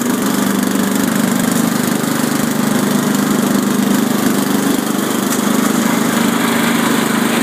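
Riding lawn mower's engine running steadily at an unchanging speed.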